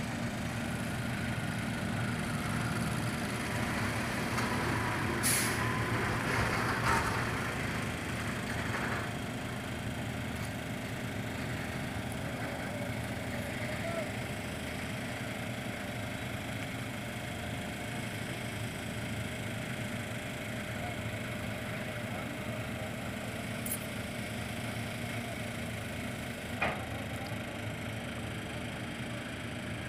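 Mobile crane's engine running steadily as it holds a heavy crate aloft. About five to nine seconds in there is a burst of hissing with two sharp knocks, and a couple of brief sharp clicks come later.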